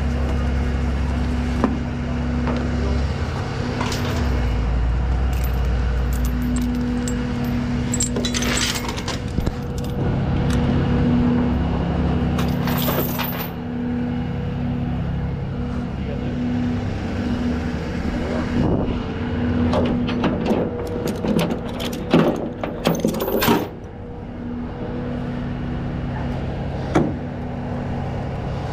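Peterbilt rollback tow truck's diesel engine running steadily, with metal clinks and rattles of chains and hooks being handled at intervals, the busiest clatter about two-thirds through.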